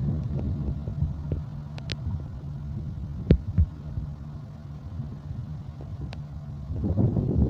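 Diesel locomotive engine running with a steady low rumble, easing off in the middle and building again near the end, with a few sharp metallic clicks.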